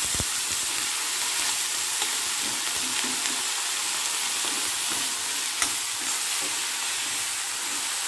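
Cubed brinjal sizzling as it fries in hot oil in a kadhai, with a steady hiss, while a steel spatula stirs it; a sharp clink of the spatula on the pan about five and a half seconds in.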